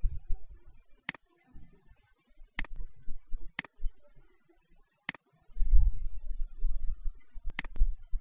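Computer mouse clicking, about five separate sharp clicks spread over several seconds, as values in a software dialog are stepped with the spinner arrows. A low rumble comes in between, strongest in the last few seconds.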